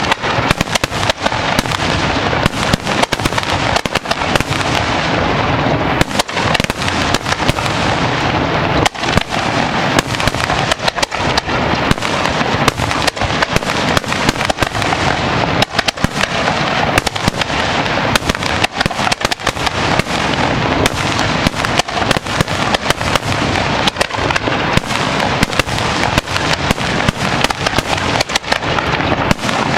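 Aerial fireworks going off in a dense, continuous barrage: shells launching and bursting in rapid, overlapping bangs.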